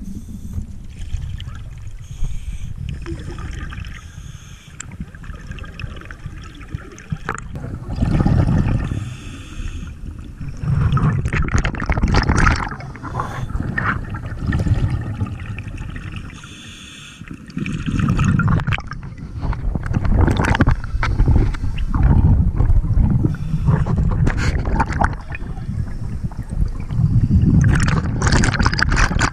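Scuba breathing heard underwater: exhaled bubbles from a regulator gurgle in surges every few seconds, over a low steady rumble of moving water.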